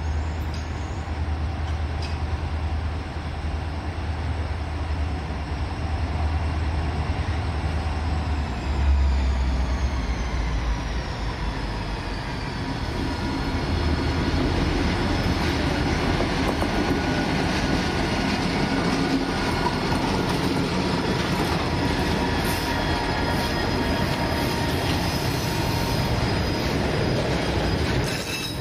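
A train rolling past. A low rumble comes first, then steel wheels squeal against the rails in several thin high tones that grow louder about halfway through and keep on to the end.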